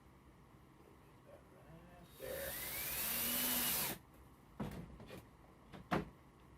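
Power drill driving a screw into a 2x4: the motor whirs up in pitch for about two seconds and stops abruptly, followed by a few light knocks.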